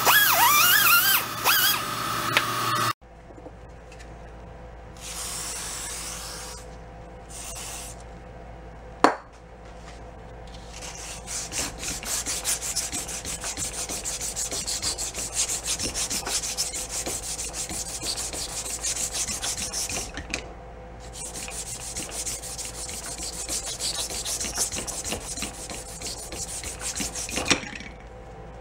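An air die grinder whines against a steel gearbox shaft, then stops abruptly about three seconds in. After that a strip of emery cloth is pulled back and forth around the shaft in a rhythmic shoe-shine rubbing, with short pauses and one sharp click. The shaft is being polished down by a thousandth or two so that a part will fit on it.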